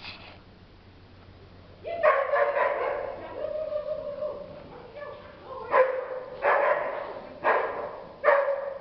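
An animal calling: a string of calls for about three seconds, then four sharp calls a little under a second apart, each trailing off in echo.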